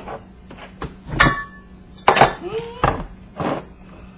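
Metal parts of an old ceiling fan knocking and clinking together as it is taken apart by hand: about seven uneven knocks and clatters, one about a second in ringing briefly like struck metal.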